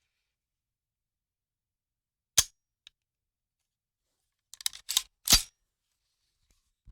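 Sharp mechanical clicks of a gun mechanism being handled: a single click about two and a half seconds in, then a quick cluster of clicks a couple of seconds later.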